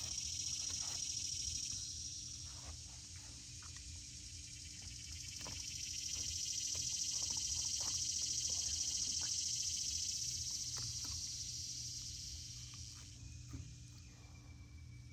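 A chorus of insects buzzing in a high, even drone that swells, eases off, then swells again and fades near the end.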